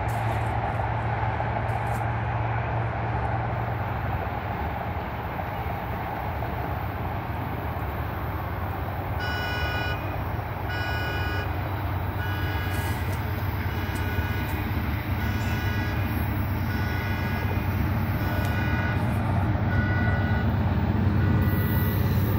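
Diesel locomotive leading an intermodal freight train, a steady low rumble growing slightly louder as it approaches. From about halfway in, a high ringing tone repeats about once a second.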